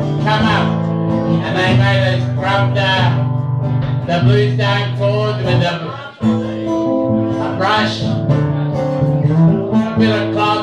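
Live acoustic guitar strumming while a man sings a folk song into a microphone, with a brief break about six seconds in.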